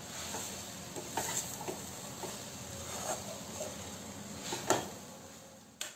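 A spatula stirring and scraping a thick coriander-leaf masala around a kadhai: soft, irregular scrapes, the loudest a little before the end, as the masala's last moisture is cooked off.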